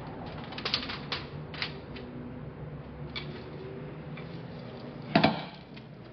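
Expandable steel skate-wheel conveyor being handled and shifted into place: metal rattling, creaking and clicking of its wheels and scissor frame, with one loud clank about five seconds in, over a steady low hum.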